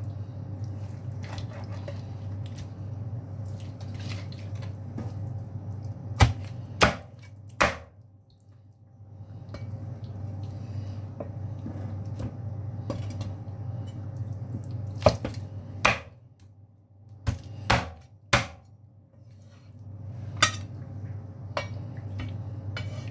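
A knife chopping through cooked chicken on a chopping board: irregular sharp knocks in short runs of two or three, about six seconds in and again between fifteen and nineteen seconds, over a steady low hum.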